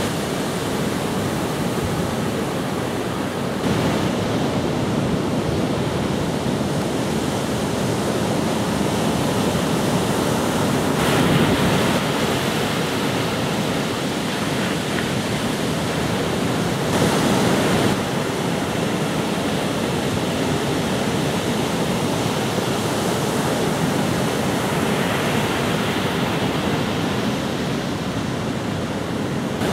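Ocean surf: waves breaking and washing in, a steady rushing noise that jumps in level abruptly a few times.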